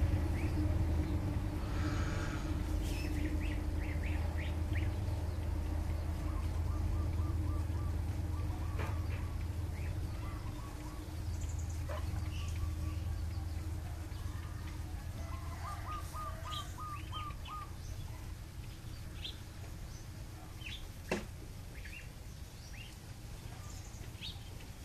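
Birds chirping: scattered short calls and a couple of quick runs of repeated notes, over a low steady hum that slowly fades. One sharp tap near the end.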